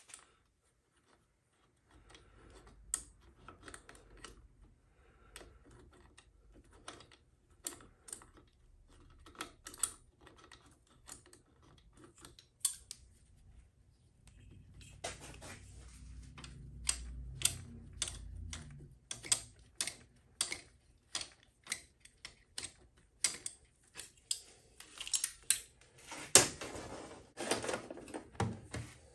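Irregular light metallic clicks and taps of hand tools and small parts while the speedometer is worked off a Honda XL70 minibike's handlebar mount. The clicks come thicker in the second half, with the loudest clatter and a scrape a little before the end.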